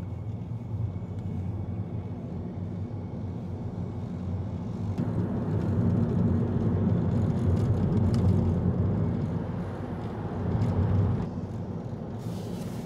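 Steady low road rumble of tyres and engine heard from inside a moving car, growing louder for several seconds in the middle.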